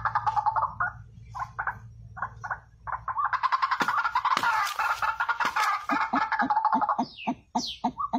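A bird calling in a rapid, chattering stream, with a few sharp taps near the middle and a run of short, low, evenly spaced pulses, about two a second, near the end.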